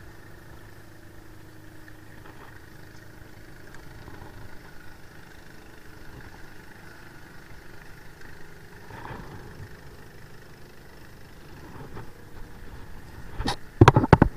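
A low steady engine-like hum, then a few loud sharp knocks near the end.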